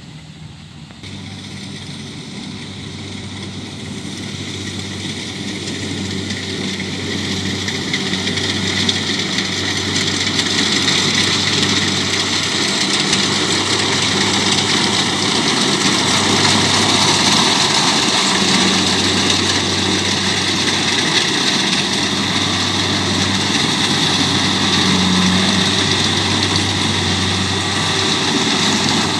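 Kubota DC70 combine harvester's diesel engine running, growing louder over the first ten seconds or so and then holding steady: a low engine drone with a higher machine whine over it.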